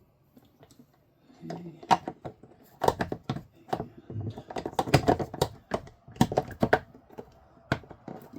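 Rapid run of sharp plastic clicks and knocks as a new RV toilet water valve is worked and pushed into place. The clicking starts about a second and a half in and is densest in the middle.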